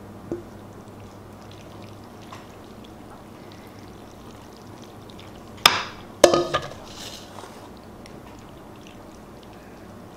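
A stainless steel mixing bowl set down on a stone countertop: two sharp clanks about half a second apart, just past halfway through, the second ringing and rattling briefly. A low steady hum runs underneath.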